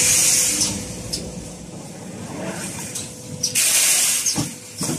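3D fence mesh production line running, with bursts of compressed-air hiss, a loud one at the start and another from about three and a half seconds in, over a rough steady machine noise. A couple of short knocks near the end.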